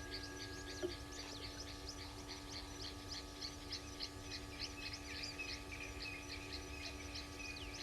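Birds chirping: a rapid run of short, high chirps, about four a second, with a second, steadier series of high notes joining about five seconds in, over a steady low hum.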